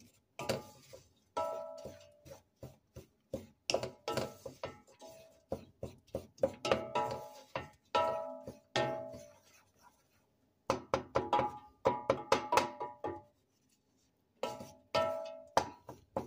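Wooden spoon stirring crumbly browned flour in a stainless steel pot, knocking and scraping against the pot's sides so that the metal rings after each strike. The knocks come in quick irregular runs with a couple of short pauses.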